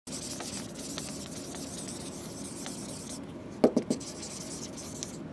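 Dry-erase marker rubbing across a whiteboard in writing strokes, with a quick run of three or four knocks about three and a half seconds in.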